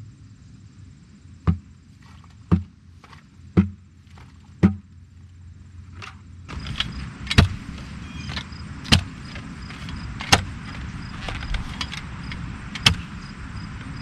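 Knocks about once a second as concrete is worked in a bucket. Then, from about six and a half seconds in, a hand post-hole digger chops into clay soil, with sharp strikes a second or two apart.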